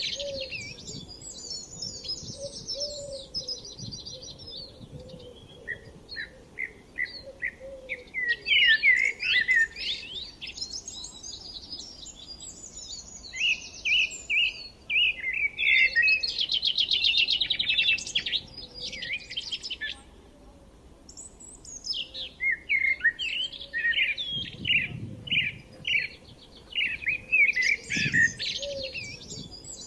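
Songbirds singing and chirping, in bursts of quick high notes and trills with short pauses between phrases.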